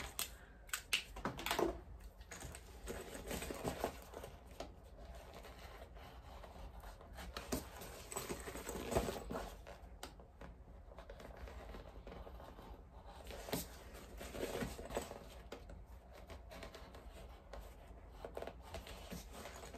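Small scissors snipping through cork fabric as the edge of a bag is trimmed down. Short irregular cuts and scratchy rustles come from the stiff material being handled.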